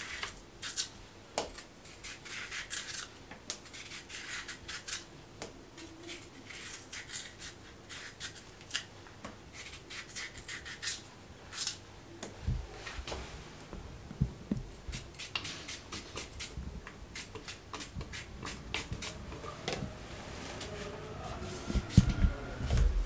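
Kitchen knife peeling cucumbers by hand, a run of short scraping strokes as the blade strips the skin. A few dull knocks come in the middle and near the end.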